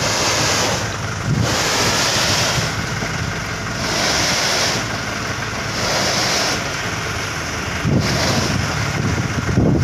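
Toyota Dyna dump truck's diesel engine running as the truck creeps forward with its bed raised, tipping out a sand-and-gravel load. A rushing hiss swells and fades every couple of seconds over the engine.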